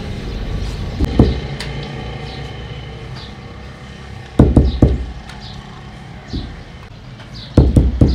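Carved wooden ajrak printing block struck by hand onto layered cloth on the printing table, giving dull thumps: one about a second in, then a quick run of three near the middle and another three near the end.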